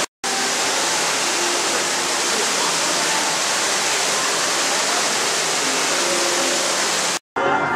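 Steady rushing noise filling the room, with faint voices and tones beneath it. It drops out completely for a split second twice, right at the start and near the end.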